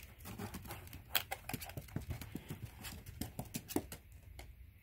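Irregular light clicks and taps, a ferret's feet and claws moving over the vinyl of an inflatable pool.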